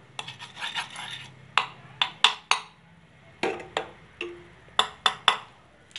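Steel spoon scraping and tapping on a non-stick frying pan while spreading a little oil over it: a soft scrape in the first second, then a series of sharp, separate clicks and taps.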